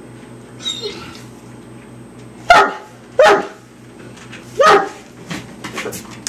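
Mastiff barking three times, short loud barks each falling in pitch, about two and a half, three and three quarter seconds in, followed by a few light clicks near the end.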